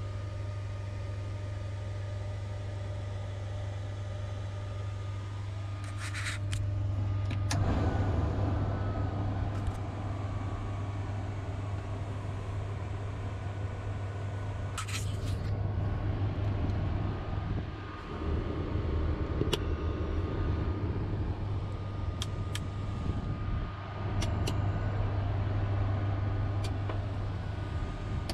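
Ground power unit running with a steady low hum, under a rushing noise that swells and dips. A few sharp clicks of cockpit switches sound through it.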